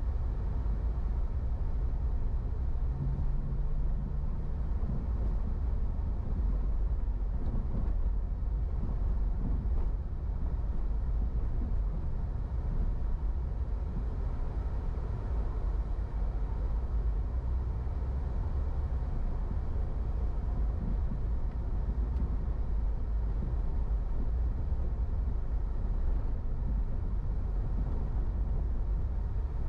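A car driving: a steady low rumble of engine and tyres on the road, with a brief low hum about three seconds in.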